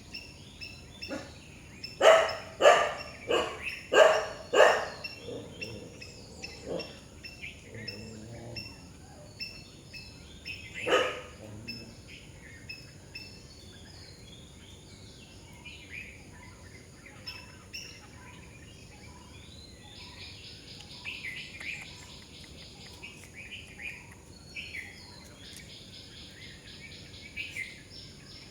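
A dog barks five times in quick succession a couple of seconds in, then once more around eleven seconds, over scattered bird chirps. Later a high buzzing, like an insect chorus, comes in twice.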